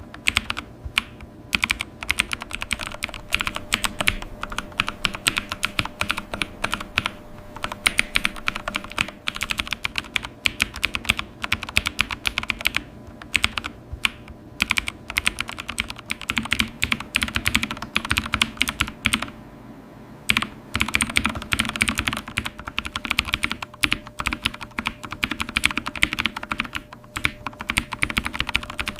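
Typing on a computer keyboard: a fast, continuous run of keystroke clicks, with a short pause about two-thirds of the way through.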